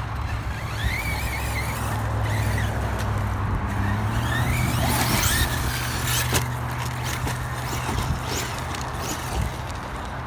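Brushless electric motor of a radio-controlled monster truck whining up and down in pitch as it is throttled, over a steady low rumble. A few sharp knocks come in the second half.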